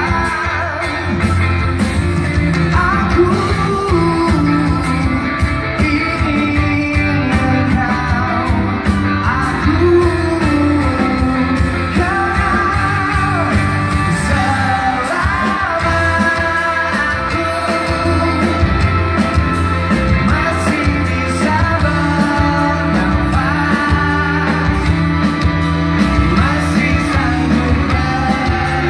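Live pop-rock band performance heard from the audience in an arena: a male singer's voice over electric guitar, bass and drums.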